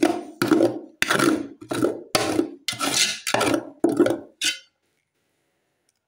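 Spatula scraping and scooping leftover rice from the inside of an aluminium cooking pot: about eight rough scrapes in quick succession, stopping about four and a half seconds in.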